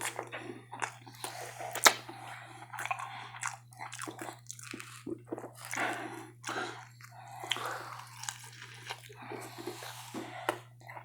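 Close-miked chewing and lip smacking of a person eating, with wet mouth noises and irregular clicks; one sharp smack about two seconds in is the loudest.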